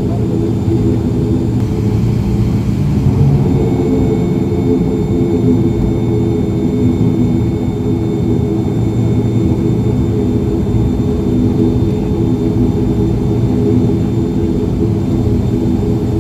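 ATR 72 twin turboprop engines and propellers running at taxi power, heard from inside the cabin: a loud, steady drone made of several steady hum tones, with a faint high whine joining a few seconds in.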